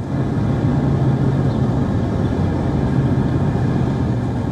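Steady low engine rumble, as of a vehicle or aircraft engine running, with a constant low hum.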